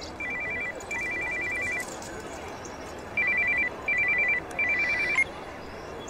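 Mobile phone ringing: a rapid electronic trill alternating between two high pitches, in short repeated bursts. It pauses about two seconds in, resumes, and stops a little after five seconds in.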